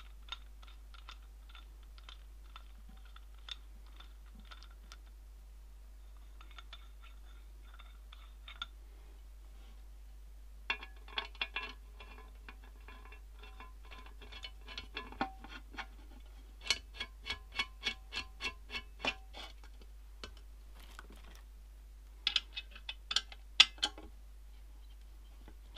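Small metal clicks and taps with a faint ring as a microscope stand's metal pillar and base plate are fitted and bolted together. The clicks come scattered at first, then in two quick runs of about four a second, with a few sharper clicks near the end.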